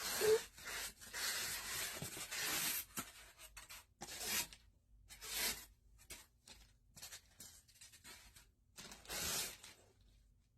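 Cardboard packaging and packing material being torn and pulled apart by hand: a long scraping tear over the first three seconds, then several shorter tearing rustles with small knocks between.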